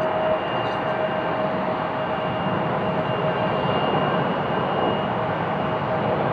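Twin jet engines of an Embraer E-Jet regional jet running at taxi power: a steady rush with a steady whine held on top.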